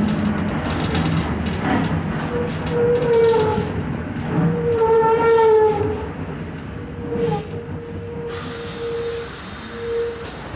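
Mercedes-Benz OF-1721 bus's rear differential whining as the bus drives, the whine rising and falling in pitch with road speed and then holding steadier; a growling differential, typical of worn gears. A steady hiss comes in about eight seconds in.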